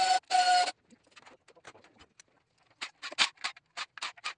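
A pneumatic tool on oil pan bolts runs in a short whining burst that stops about half a second in. After a lull, a cordless driver on the pan bolts gives a rapid run of short clicks and chirps.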